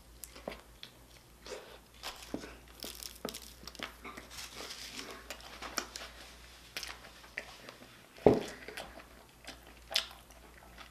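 Close-miked eating of a Chicago-style hot dog: a paper wrapper crinkling and tearing, with bites and chewing. A louder single thump or bite comes about eight seconds in.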